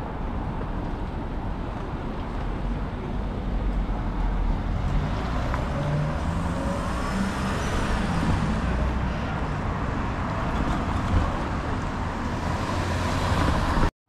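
Downtown street traffic: motor vehicles driving past with steady road noise and engine rumble, swelling about four seconds in. The sound cuts off suddenly at the end.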